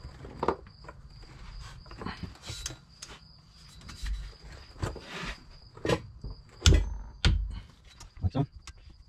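Torque wrench and socket working the driveshaft-to-differential flange bolts: scattered metallic clicks and light knocks, with two heavier knocks about three-quarters of the way through. A thin steady high-pitched whine runs underneath.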